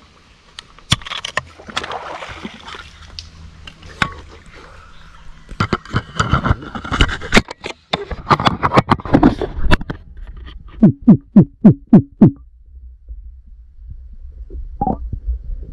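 Close handling noise on an action camera in its waterproof housing: rubbing, clicks and knocks, then a quick run of about seven heavy thumps about two thirds in. Near the end the sound turns to a low, muffled murk as the camera goes under water.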